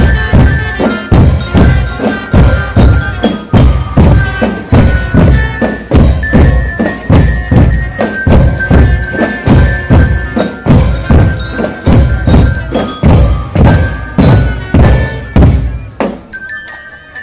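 Marching drum band playing: drums beat a steady rhythm of about two strokes a second under a melody of bright, bell-like mallet notes. Near the end the drums stop, leaving a few fainter bell notes.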